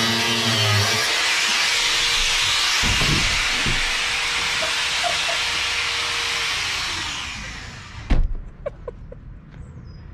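An angle grinder running against a caravan's ceiling with a loud, steady grinding whine, which winds down with a falling pitch about seven seconds in. About eight seconds in comes one heavy thump as the caravan tips over, followed by a few small knocks.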